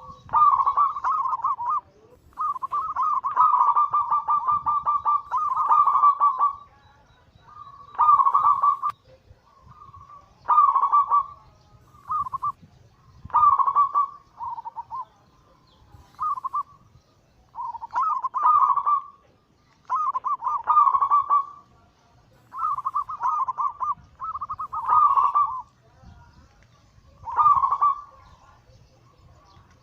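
Zebra doves (perkutut) cooing in repeated trilling, rolling coo phrases. Each phrase lasts from half a second to a few seconds, with short pauses between, and the longest run of cooing comes a few seconds in.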